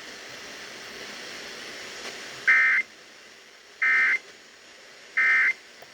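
Emergency Alert System end-of-message tones: three short, identical bursts of shrill warbling digital data, about a second apart, marking the end of the flash flood warning. Faint hiss comes before them.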